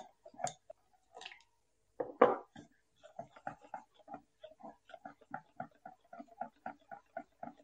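Wire whisk beating besan (gram flour) batter in a stainless steel bowl: quick rhythmic strokes, about three to four a second, with one louder knock about two seconds in.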